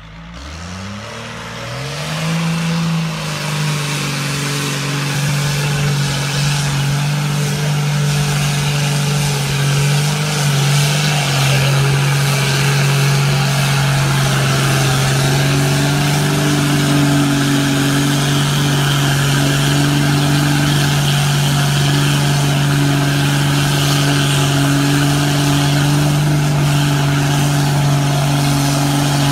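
Diesel engine of a large custom mud truck, revving up over the first few seconds and then held at steady high revs under heavy load as the truck churns through a deep mud pit.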